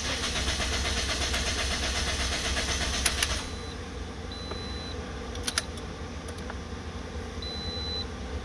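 A 2009 Toyota Matrix engine cranks on the starter with an even rhythmic chug for about three seconds without firing, then stops: a crank-no-start, with the immobiliser still blocking the start, which the mechanic traces to a key that was not mated to the car. A few clicks follow, then a short high beep twice.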